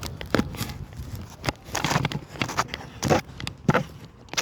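Footsteps and rustling gear: irregular scuffs and clicks, the loudest about three seconds in and near the end.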